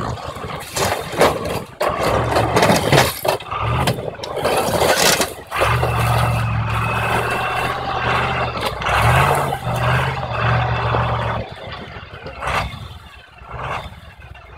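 KAMAZ truck's diesel engine working hard under load as the truck tries to drive out of a slushy hole in river ice, with noisy rushes of churned water and ice from the spinning wheels. The engine note rises briefly about nine seconds in and drops away near the end.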